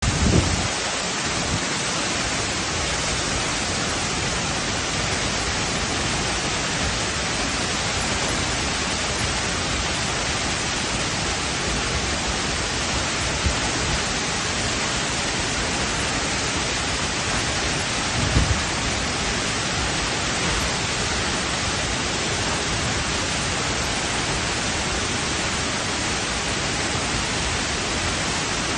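Waterfall water rushing down rock: a steady, even hiss. Brief low bumps break through near the start and about two-thirds of the way through.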